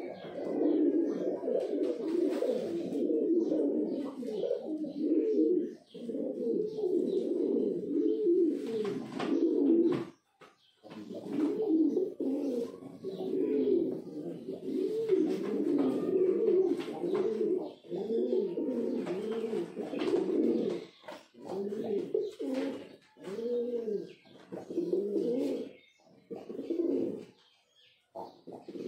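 Several male Rampuri pigeons cooing, their low coos overlapping almost without pause, with a short break about ten seconds in. In the later part the coos come more separately, each a short rise-and-fall.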